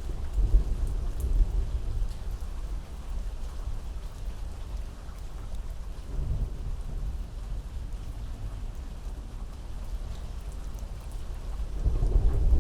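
Thunderstorm: steady heavy rain with low rolling thunder that swells near the start, again about halfway through, and louder near the end.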